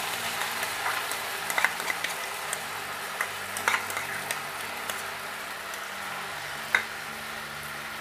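Onion paste frying in hot oil in a kadai, a steady sizzle, with a few sharp clinks of a spoon against the bowl and pan as the paste is scraped in; the loudest clink comes near the end.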